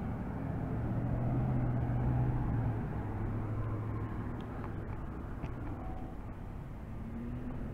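Street traffic: a car driving past through an intersection. Its engine and tyre hum swells over the first few seconds, then eases back to a steady background rumble.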